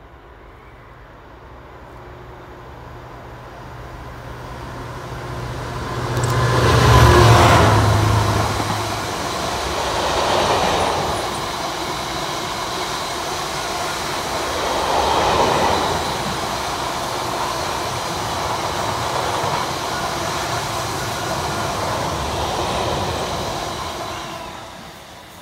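Freightliner Class 59 diesel locomotive 59101, its EMD 16-cylinder two-stroke engine running with a low note that grows as it approaches and is loudest as it passes about seven seconds in. A long rake of empty box wagons follows, rolling by with steady wheel-on-rail noise that fades near the end.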